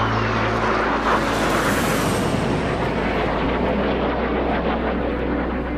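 Skis scraping over an icy race course at speed: a steady rushing hiss with fine, rapid chatter.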